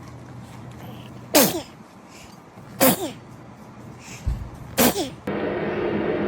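Newborn baby sneezing three times, short sharp sneezes about a second and a half to two seconds apart, each with a falling squeak in its voice.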